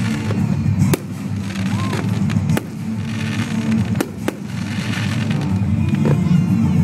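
Aerial fireworks shells bursting in several sharp bangs, roughly a second or two apart.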